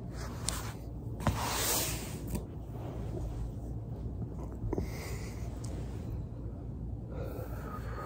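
A person shifting about on a carpeted floor and breathing, with a few sharp clicks and a long rustle about a second and a half in, over a steady low hum.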